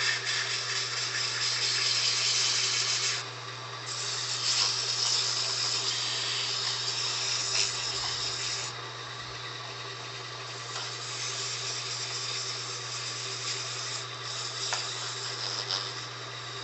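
Wood lathe running with a steady motor hum while sandpaper is held against the small spinning wooden workpiece, giving a hissing rasp. The hiss breaks off briefly about three seconds in and is lighter and more uneven after about nine seconds.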